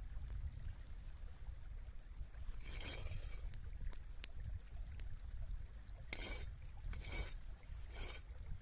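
A kitchen knife slicing tomatoes against a flat rock, several short crisp cuts about three, six, seven and eight seconds in, over a steady low rumble.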